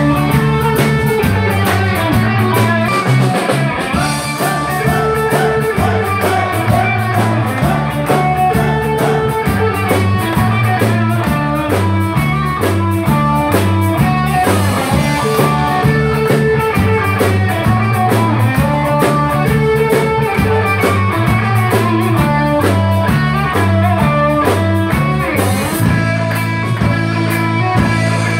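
Live rock band playing with electric guitar, bass guitar and drum kit, the bass repeating a steady line under a regular drum beat.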